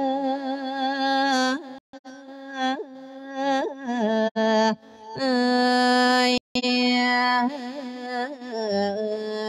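A monk's voice chanting a Thai verse sermon (thet klon) in a sung, melodic style. He holds long notes and ornaments them with wavering turns and glides. The sound cuts out briefly twice.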